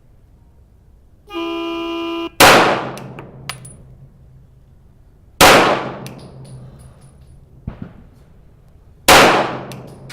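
A buzzer-like start tone about one second long, then three 9mm pistol shots from a CZ P-10F, about three and four seconds apart, each with a ringing tail.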